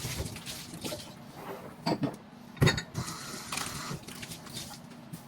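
Kitchen clatter: dishes and utensils handled and knocked together, with two sharper knocks about two seconds in.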